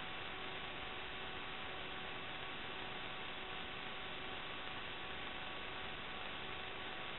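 Steady hiss with a constant electrical hum of several thin tones, unchanging throughout: line noise in the DVR recorder's audio rather than any live sound.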